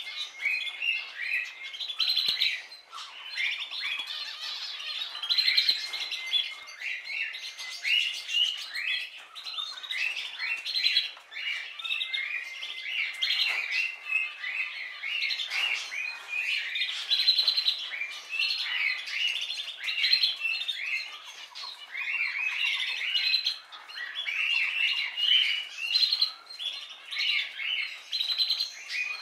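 A flock of birds chirping and chattering together: many short, overlapping calls in a dense, unbroken chorus.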